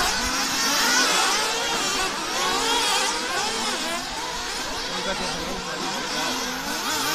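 Several 1/8-scale nitro off-road RC buggies' small two-stroke glow engines revving together, their high-pitched whines overlapping and constantly rising and falling in pitch as the cars accelerate and back off around the track.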